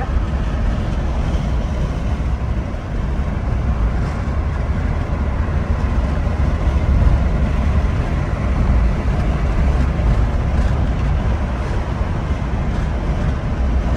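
Steady cabin noise of a car driving at road speed: engine and tyres on the road heard from inside, with strong low-pitched hum.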